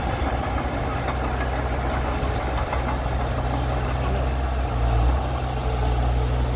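Heavy machine engine running steadily, with a brief swell in engine sound about five seconds in.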